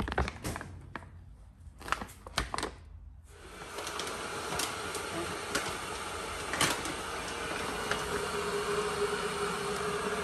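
A few sharp clicks and knocks of a coffee bag and containers being handled at a kitchen counter, then, from about three seconds in, a steady rushing noise with a faint hum.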